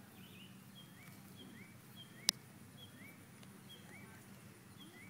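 A bird chirping over and over, a short rising chirp about every two-thirds of a second with short higher notes between, over faint outdoor background noise. One sharp click a little over two seconds in.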